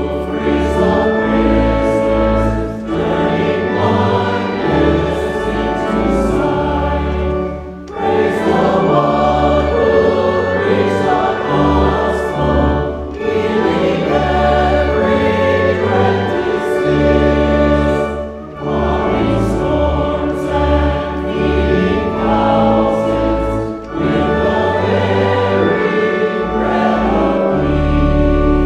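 Choir singing a hymn verse with low accompanying bass notes, phrase by phrase, with a brief dip between lines about every five seconds.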